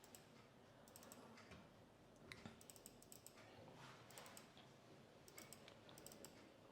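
Faint computer keyboard typing: scattered little clusters of light key clicks.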